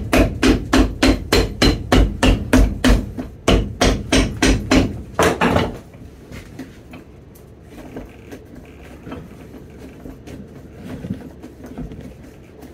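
Steel cobbler's hammer striking the leather sole of a boot in quick, even blows, about three or four a second, pounding the re-glued leather midsole flat against the welt. The hammering pauses briefly just past three seconds and stops about six seconds in, leaving faint handling noises.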